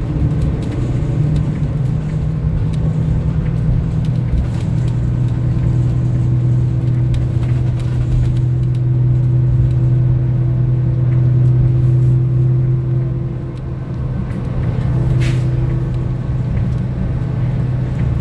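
Interior sound of a 2025 Gillig CNG 40-foot transit bus under way: a steady low hum from the engine and drivetrain with road rumble. The loudness dips briefly about two-thirds of the way through, and a short high tick is heard soon after.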